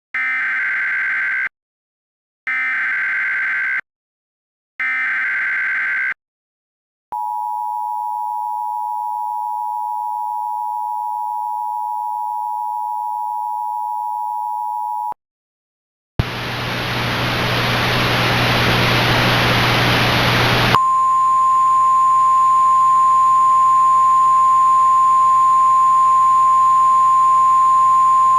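Emergency Alert System tones. First come three short buzzy data bursts of the digital alert header, each about a second long with a second's gap. Then the two-tone attention signal sounds steadily for about eight seconds. After a short break comes a few seconds of static hiss with hum, then a single steady high tone over the hiss.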